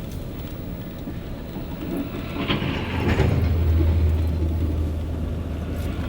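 A heavy vehicle going by on a snowy road: a low rumble that builds and then holds steady through the second half.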